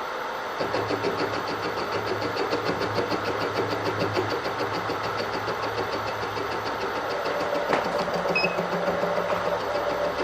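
Milling machine spindle running with a boring head, its single-point cutter taking a very light cut that just barely touches the work. From about half a second in, a steady hum carries a rapid, even ticking as the tool touches once each turn.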